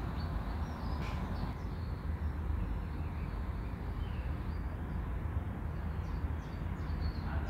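Quiet steady low background hum with a few faint, short high chirps in the second half.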